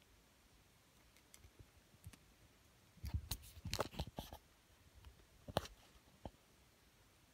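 Scratching and clicking from a pen tip rubbed on the skin between the toes, close to the microphone: a few faint clicks, then a dense cluster of sharp scrapes about three seconds in and another near the end.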